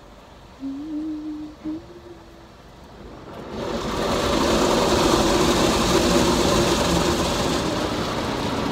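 Automatic car wash machine working over the car, heard from inside the cabin: after a short, wavering hum near the start, a loud, steady rush of water spray and brushes against the body and roof sets in about three and a half seconds in.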